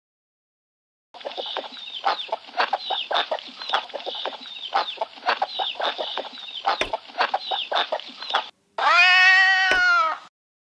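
Cartoon sound effects from a children's story app. A flock of cartoon birds clucks and cackles in rapid chatter for several seconds. Near the end comes a single drawn-out cat meow.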